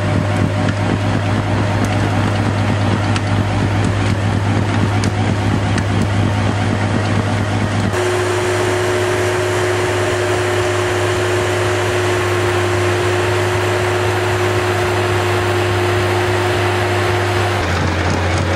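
Avant compact loader's Kubota diesel engine running steadily under load while its hydraulic snowblower attachment spins and throws snow, a constant drone with a steady whine and a rushing hiss. The pitch of the drone and whine shifts at about eight seconds and again near the end.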